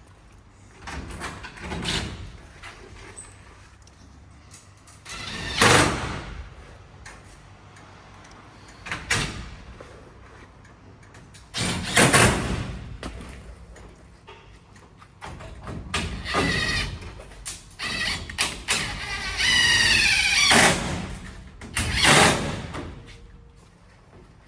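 Knocks, scrapes and rattles of greenhouse door and frame parts being handled while the door hinges are bolted on, with a short squeal about three-quarters of the way through.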